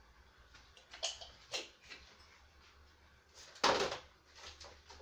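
Small spice container handled over a saucepan as cumin seeds are tipped into oil: a few sharp clicks and taps, then one louder knock about three and a half seconds in.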